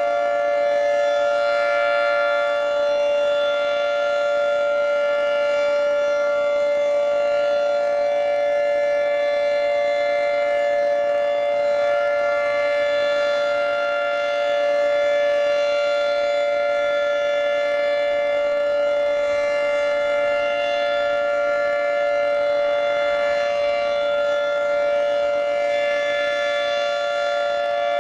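Federal Signal 2T22 dual-tone electromechanical outdoor warning siren sounding a steady two-note chord during a siren test, its pitch held level with only slight slow swells in loudness.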